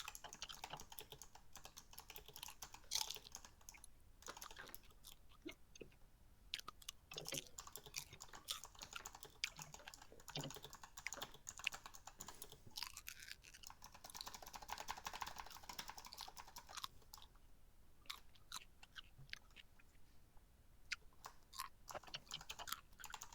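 Faint typing on a computer keyboard: irregular key clicks and taps, with short pauses between runs.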